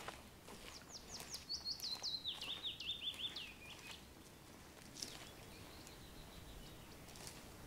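A small songbird singing one quick phrase of rapid high notes that step down in pitch, starting about a second in and lasting about three seconds; a fainter high trill follows a couple of seconds later.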